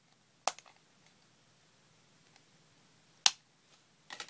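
Sharp plastic snaps as a SIM card is pressed out of its credit-card-sized plastic carrier: one snap about half a second in, another about three seconds in, and a quick run of clicks near the end.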